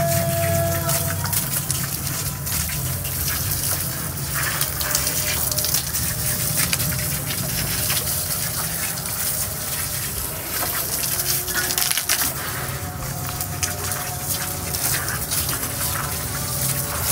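Water spraying from a garden hose onto brick walls, a steady gushing hiss with splashing, wetting the new brickwork before plastering.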